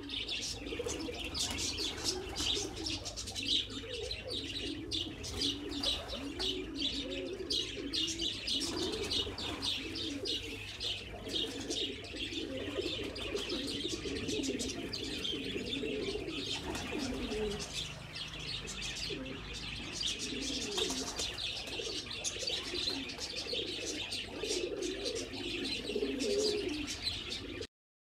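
Domestic pigeons cooing continuously, with quick high chirps over the cooing; the sound cuts off suddenly near the end.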